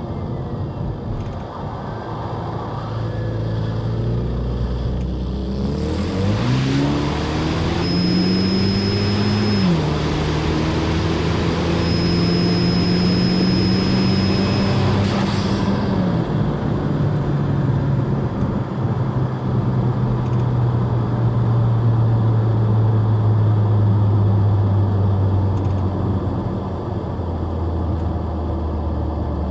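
A 2017 Ford Escape's 2.0 EcoBoost turbocharged four-cylinder, breathing through a K&N drop-in filter in an open airbox, accelerating hard. Under boost there is a loud rush of intake air and a thin, high turbo whistle. The engine note climbs, drops at one upshift about ten seconds in, climbs again, then falls away when the throttle is lifted about sixteen seconds in and winds down slowly.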